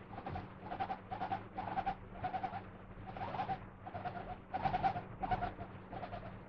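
Guinea pig making its soft "hoyo hoyo" chatter: about ten short, repeated calls, roughly two a second. It is the contented sound of a guinea pig in a good mood.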